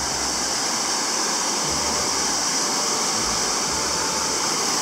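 Waterfall on a rocky mountain river, rushing steadily.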